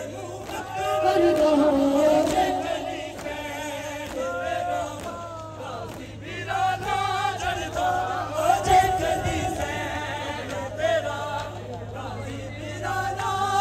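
A crowd of men chanting a noha, a Shia mourning lament for Ghazi Abbas, in chorus through a microphone, the sung lines rising and falling.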